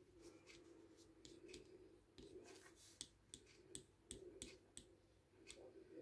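Faint scratching and light clicks of a wood-burning pen tip working over a wooden plaque, the clicks coming more often in the second half.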